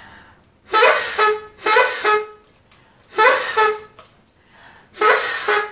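Silver cone party horn blown in four short buzzy toots, each about half a second long, with gaps of about half a second to a second and a half between them.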